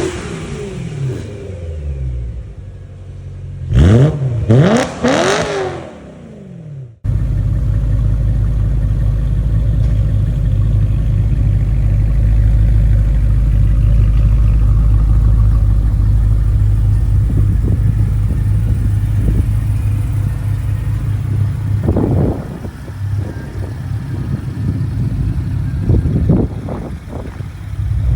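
BMW E90 M3's S65 V8 through a stainless steel valved axle-back exhaust, blipped several times with the pitch rising and falling quickly. About seven seconds in the sound cuts abruptly to a steady low engine drone, with a couple of short revs near the end.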